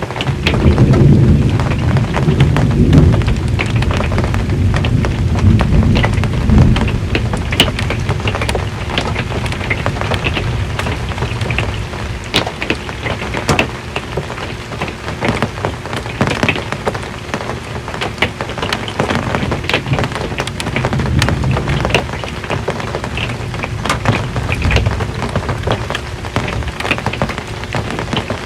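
Rain drumming on a metal RV roof, a dense patter of individual drops, with thunder rumbling low underneath, strongest over the first several seconds and returning more faintly later on.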